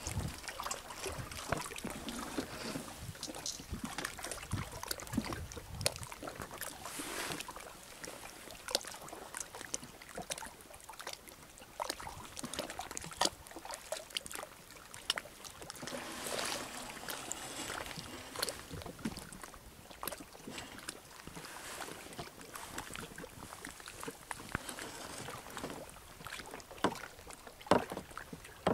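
Sea kayak being paddled: water swishing off the paddle blades in swells, with many small sharp drips and splashes and a couple of louder splashes near the end.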